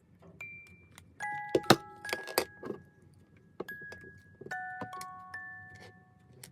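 Background music of light chiming mallet notes, like a glockenspiel. A louder patch of sharp clicks and rattling comes between about one and a half and three seconds in.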